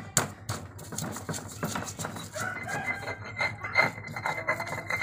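Stone pestle on a stone mortar (cobek and ulekan) grinding spices: a couple of sharp knocks in the first half second, then short rapid scraping strokes. From about two seconds in, chickens cluck over the grinding.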